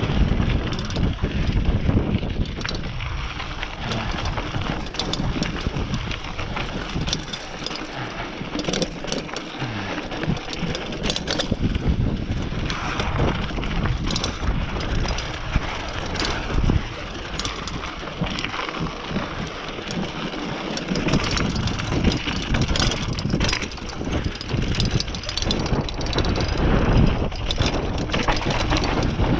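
Mountain bike riding fast down a dry dirt trail: tyres rolling and skidding over dirt and rocks, with frequent rattles and knocks from the bike over bumps, and wind rumbling on the microphone.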